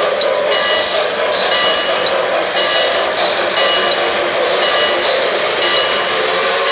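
O-scale model freight cars rolling past on three-rail track with a steady rumble and rattle. A high pitched beep repeats about once a second over it.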